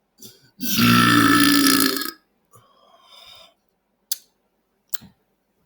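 A loud, drawn-out belch lasting about a second and a half, brought up by a carbonated sparkling water. Two short, sharp clicks follow later.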